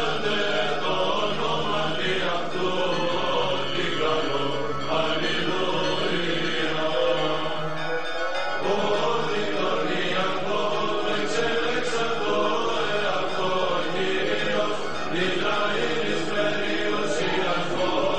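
Greek Orthodox Byzantine chant: voices singing a slow, sustained melody over a low held drone note that breaks off briefly about eight seconds in.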